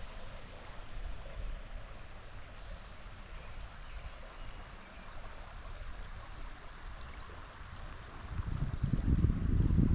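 Creek water flowing steadily as a soft, even rush. A low rumble swells up and becomes the loudest sound in the last second and a half.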